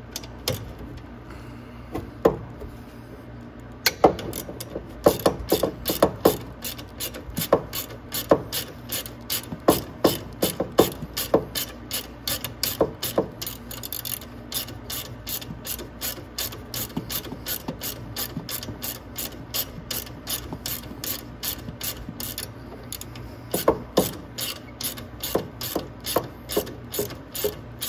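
Socket ratchet set to loosen, clicking in rapid runs as it is swung back and forth to back out the 8 mm bolt that holds the battery bracket. A few single clicks come first, then steady runs, a short pause and more clicking near the end.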